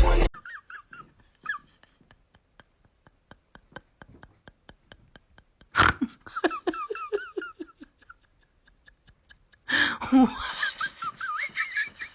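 Person laughing in short repeated bursts, with a sudden loud knock about six seconds in and a louder stretch of laughter near the end.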